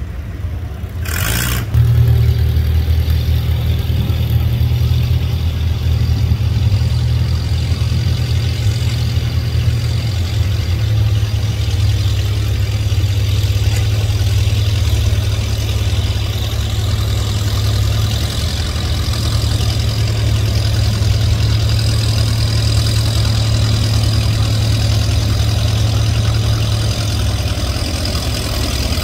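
Antique farm tractor engine running at a steady, deep, low drone, getting louder about two seconds in.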